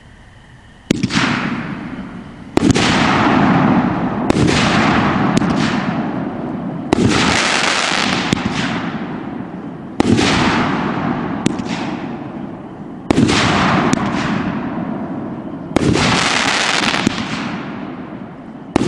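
500-gram consumer firework cake (OMG Fireworks Nationwide Impact) firing its hard-hitting breaks: a series of loud bangs every two to three seconds, starting about a second in, each followed by a fading crackle.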